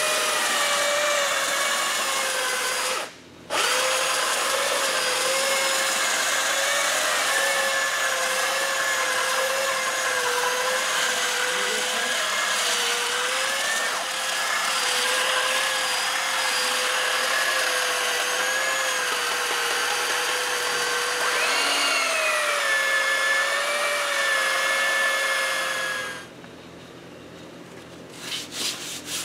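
Handheld electric power tool running with a steady high whine. It cuts out for a moment about three seconds in, rises in pitch and settles again past the middle, and stops near the end.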